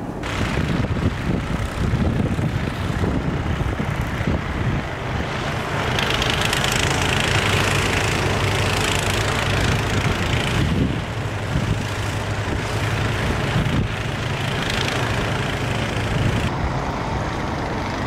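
Gas snow blower's small engine running steadily. From about six to eleven seconds in, a louder rushing hiss of snow being thrown.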